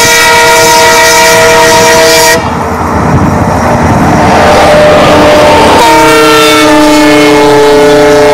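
Indian Railways diesel locomotive's air horn blowing a long multi-tone chord for about two seconds, then the rumble of the passing freight train, then a second long horn blast in a slightly lower chord from about six seconds in.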